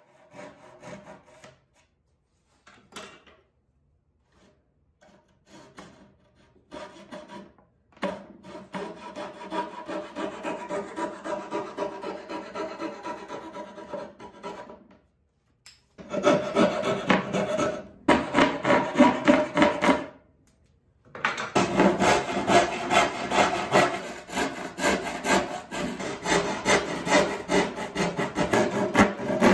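Hand sawing pine with a backsaw, cutting tenons into the end of a board: a few separate strokes at first, then runs of quick, even back-and-forth strokes broken by two short pauses, louder in the second half. A coping saw does part of the cutting in the middle.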